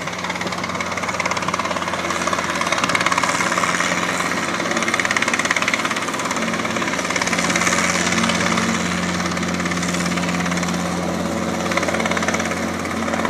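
Robinson R22 Beta II helicopter running steadily as it hovers low, a continuous engine and rotor drone that grows a little louder over the first few seconds.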